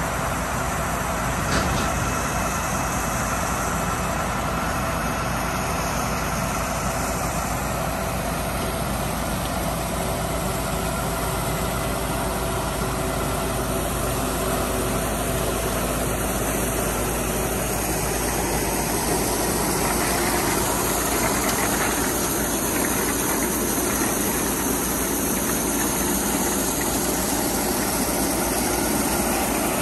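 Mack stone slinger truck's diesel engine running steadily, driving the conveyor belt that flings gravel, with a continuous mechanical drone and hiss. A single short knock about a second and a half in.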